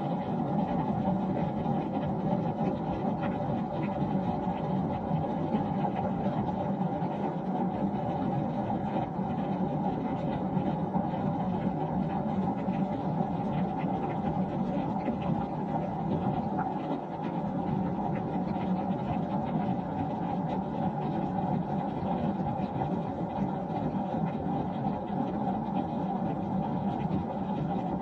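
Steady rain falling on a wooden deck: an even wash of many small drop hits, dull rather than hissy, with most of its weight in the low and middle range.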